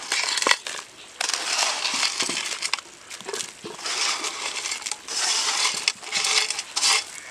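Crab shells scraping and clattering over a metal plate in a string of bursts as handfuls of crabs are pushed off it into a clay pot of boiling gravy, with a few sharp clicks of shell on metal.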